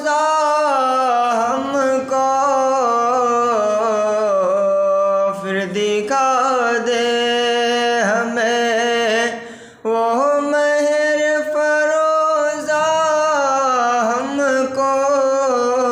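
A man singing an Urdu naat unaccompanied, drawing out long, ornamented held notes that waver up and down in pitch, with a brief breath about ten seconds in.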